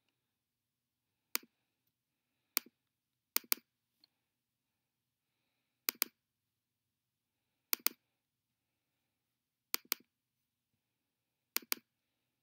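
Computer mouse button clicks: two single clicks, then five quick double-clicks spaced about two seconds apart, as files are picked and opened.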